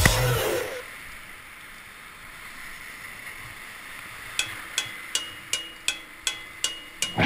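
Rushing whitewater of a river rapid, a steady hiss, as a kayak runs through it. Music fades out about a second in, and from about halfway sharp regular ticks come in, close to three a second.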